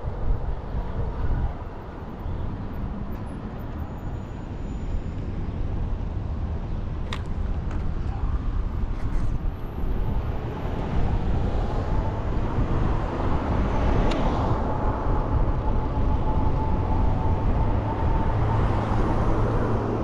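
Vehicle noise: a steady low rumble, with a faint steady whine joining about halfway through and a few light clicks.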